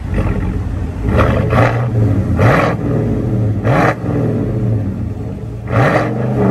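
GMC Sierra pickup's engine running through an aftermarket true dual exhaust, idling with a steady low note and revved in about five short, sharp throttle blips: two close together about a second in, then one around two and a half seconds, one near four seconds and one near six seconds.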